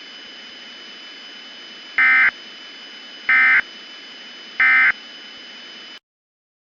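Emergency Alert System end-of-message data bursts: three identical short warbling digital bursts about 1.3 seconds apart, over a steady hiss that cuts off suddenly about six seconds in.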